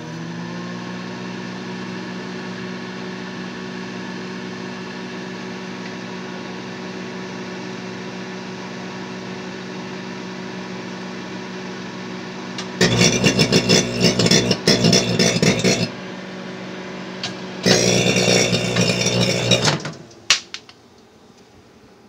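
Microwave oven running with a steady electrical hum. About halfway through come two loud bursts of crackling, one of about three seconds and one of about two. The hum stops shortly before the end.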